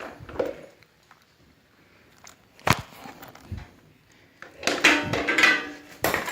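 Clicks, a sharp knock and a burst of scraping and rattling as plastic parts of a motorcycle's air filter housing are handled and a small piece is pulled out of it.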